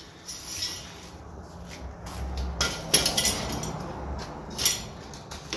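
Light metallic clinks and rattles from steel trap cable, a swivel and small cable fittings being handled at a workbench, with a sharp clink about three seconds in the loudest.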